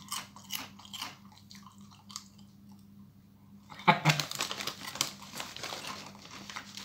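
Crunching and chewing of a ridged potato crisp, a quick series of crisp crunches in the first two seconds or so. About four seconds in comes a louder run of crackling and rustling.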